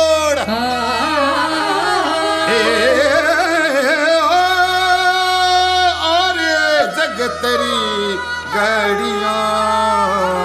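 Background music: a slow song in Rajasthani, a voice holding long, wavering, ornamented notes over instrumental accompaniment.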